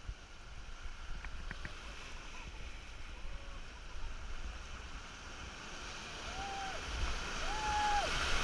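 Ocean surf washing and breaking around rocks, with wind buffeting the microphone, getting louder near the end as a wave breaks in. Two short held tones sound near the end.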